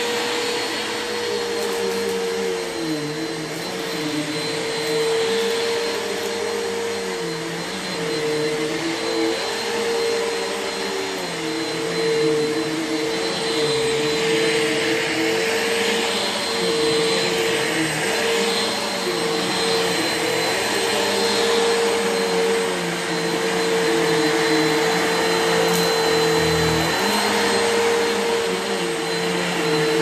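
Bissell PowerForce Helix bagless upright vacuum with an 8-amp motor running on shag carpet, a steady motor whine over airflow noise. A lower hum dips and recovers in pitch every couple of seconds as the vacuum is pushed back and forth.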